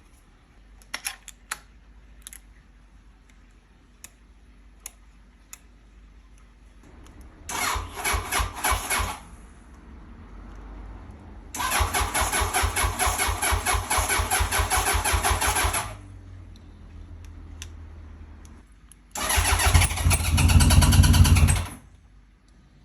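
A few clicks, then a Honda CB900F's air-cooled inline-four being cranked on the electric starter with full choke in three bouts, each stopping abruptly, the last one the loudest; the cold engine is reluctant to start.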